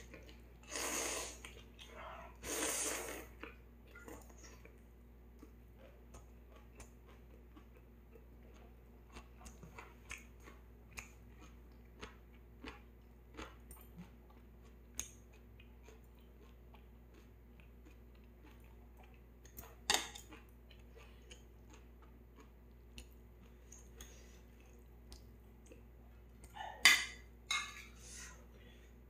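Close-up eating of ramyeon noodles: a few noisy slurps in the first three seconds, then soft chewing with many small clicks. There are louder sharp clicks about twenty seconds in and near the end.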